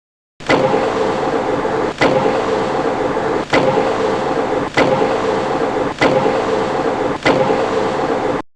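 Metal lathe running, with a steady mechanical noise and a sharp click about every second and a half. It cuts off suddenly near the end.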